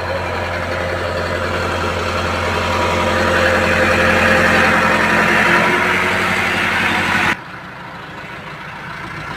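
Farm tractor's diesel engine running hard, getting louder toward the middle as it strains to pull the loaded trolley. The sound drops sharply about seven seconds in.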